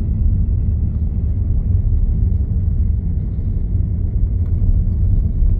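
Steady low rumble of a car driving along an asphalt road: engine and tyre noise, cutting off suddenly at the very end.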